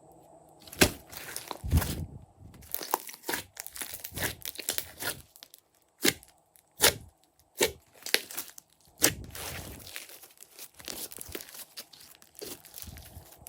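Hands kneading, stretching and pressing glossy slime, making irregular sharp clicks and sticky crackles.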